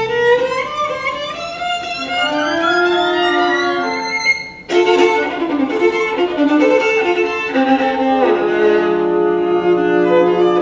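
Solo violin playing with an orchestra: a rising run climbs over the first four seconds. After a brief break about halfway through, the orchestra comes in fuller, with long held notes under the violin.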